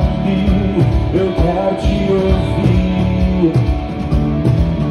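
Full band playing live in a rock groove: drum kit, electric bass and electric guitar, with a steady beat throughout.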